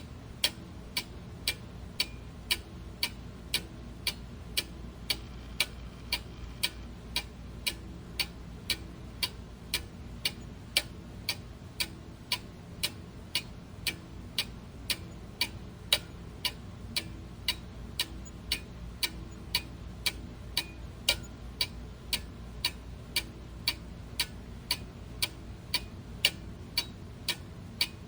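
Clock ticking steadily, about two evenly spaced ticks a second, over a faint steady low hum.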